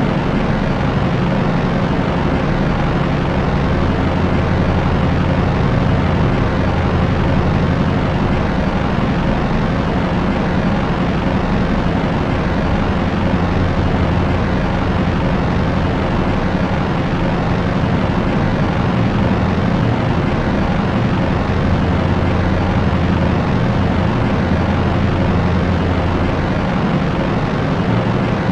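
Steady drone of a propeller airplane's propellers and engines: a low hum under an even rushing noise. The low hum grows a little stronger a few seconds in and eases slightly near the end.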